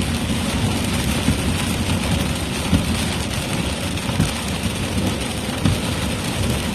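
Rain pelting a moving car's roof and windshield as a steady hiss over low road and engine rumble, heard from inside the cabin.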